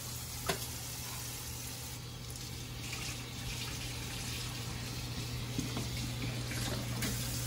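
Kitchen faucet running a steady stream into a stainless steel sink, with a short knock about half a second in.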